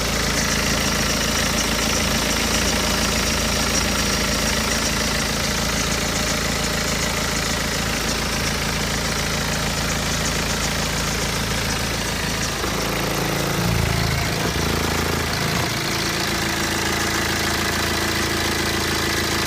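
BMW 120d's N47 four-cylinder diesel engine idling, with the timing chain noise the owner says has become clearly audible now that it is cold, the usual sign of a stretching N47 timing chain. The engine note shifts briefly about two-thirds of the way through.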